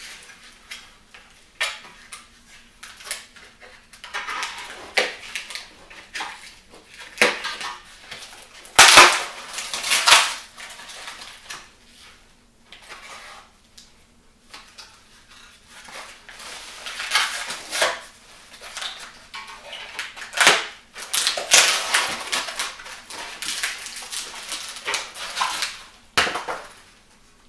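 Packing being pulled and cut off new steel exhaust headers: irregular crinkling and tearing of plastic wrap and cardboard, broken by several sharp knocks, the loudest about nine seconds in.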